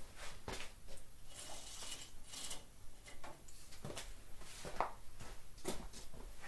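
Scattered light clicks, knocks and clinks of small hard objects being handled, with a brief hiss about two seconds in.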